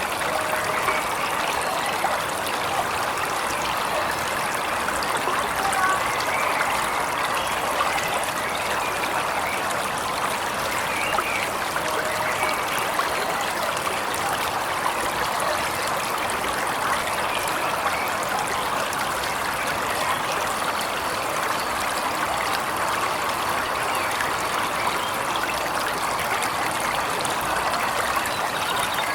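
Waterfall running steadily, an even rush of falling water, with a few faint short bird chirps here and there.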